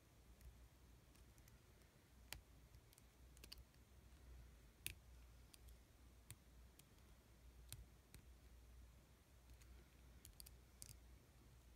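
Faint, scattered clicks as a plastic Hasbro clone trooper action figure is handled and its arms and blaster are moved into poses, over a low steady hum.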